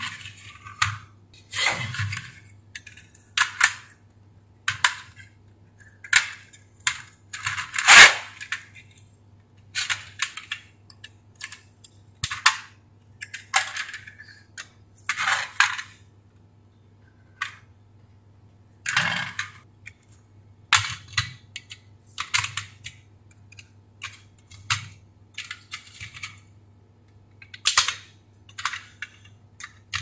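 Plastic housing of a washing machine control board being pried open by hand: irregular clicks, snaps and scrapes as the clips release and the cover is worked off, the loudest snap about eight seconds in.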